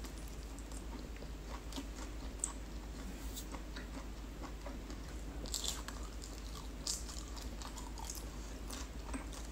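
Close-up chewing of roast turkey meat and skin, with small scattered clicks and a few sharper ones throughout; the turkey skin is tough and very chewy.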